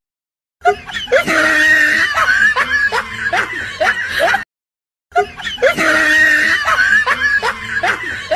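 Comedy laughter sound effect: a burst of about four seconds of laughter, then half a second of silence, then the same clip again.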